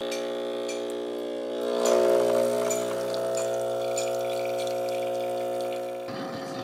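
Espresso machine's pump humming steadily as it pulls a shot into a mug, swelling about two seconds in as the coffee starts to flow. The hum changes a little before the end.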